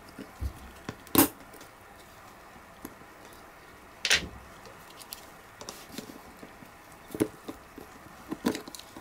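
Small metal clicks and clanks of a screwdriver and pliers working a spring's U-shaped hook onto the bar of a Jaguar XJS handbrake lever mechanism. There are four sharp knocks, the loudest about a second in and another about four seconds in, with lighter ticks between.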